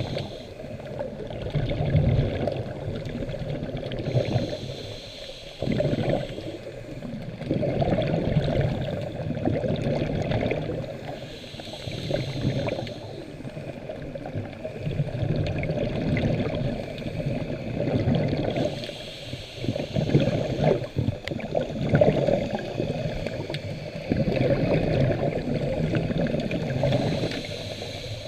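Underwater sound of a scuba diver breathing through a regulator: a hiss on each breath, about every four seconds, with bubbling and gurgling water noise between.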